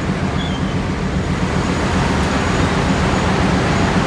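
Steady low rumble of bus, truck and car engines as vehicles queue and drive off a ferry.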